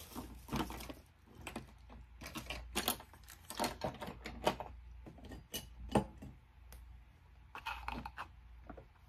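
Hands rummaging among small makeup items on a desk: irregular clicks, taps and rattles of small objects knocking together, the loudest knock about six seconds in.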